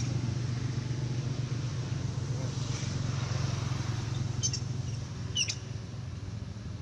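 A motor vehicle engine running steadily, fading away about five seconds in. Two brief high-pitched squeaks come near the end.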